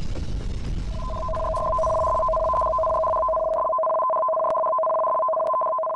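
Electronic tsunami-warning alert tone: two steady pitches sound together, starting about a second in and held, then cut off abruptly. Under it a low rumble fades away by about halfway.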